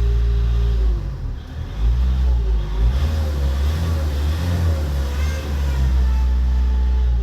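Ford Mondeo Mk4 2.0 TDCi diesel engine running. It holds a steady drone, then about a second in its sound shifts and wavers in pitch for several seconds before settling back to the steady drone near the end.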